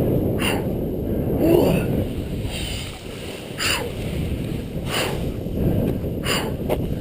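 Snowboard sliding over snow with wind buffeting the action camera's microphone: a steady low rushing, crossed by short hissing scrapes every second or two.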